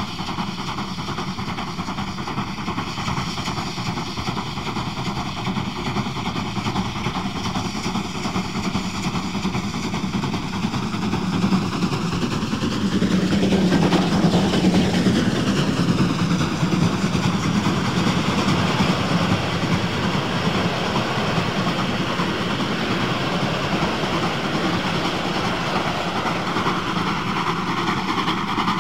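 DB class 050 2-10-0 steam locomotive No. 050-411 working its train up a steep climb. It draws nearer and passes closest, at its loudest, about halfway through, and its train keeps rolling past after it.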